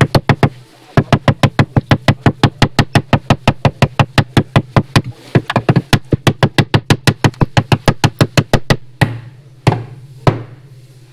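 Sledgehammer hammering a steel body seam inside a car's front wheel well, bending it back to clear oversized tires. A few blows, then a fast steady run of about five blows a second for roughly eight seconds, then three single heavy blows near the end.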